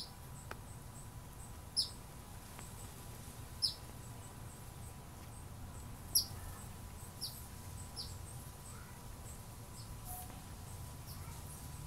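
A bird calling with short, sharp, high chirps that fall in pitch, about eight of them at irregular intervals of one to two seconds. A low steady background rumble runs underneath.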